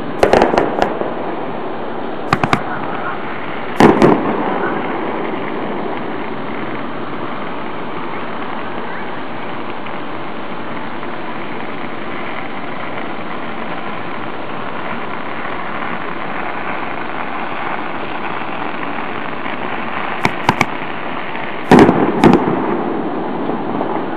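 Aerial fireworks shells bursting: a quick cluster of sharp bangs at the start, single bangs at about two and four seconds in, then a long lull with only steady background noise before another cluster of bangs near the end, the bigger ones trailing off in a short rumble.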